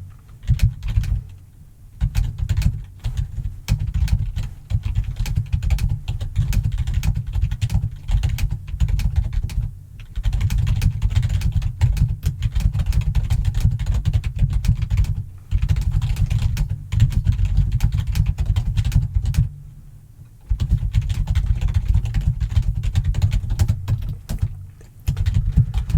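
Computer keyboard being typed on fast and hard: long runs of rapid key clicks with deep thuds, broken by a few short pauses.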